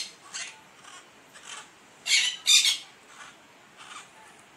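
Small green parakeets calling with harsh, screeching squawks. Two loud squawks come close together about two seconds in, with fainter calls scattered around them.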